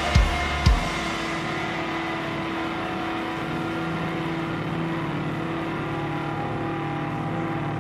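Live worship band: the drum beat stops about a second in, leaving a steady, sustained low chord that drones on without rhythm.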